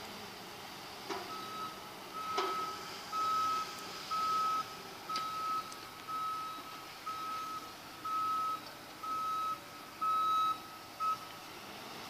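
Reversing alarm on a construction machine: one steady beep repeated about once a second, around ten times, stopping shortly before the end.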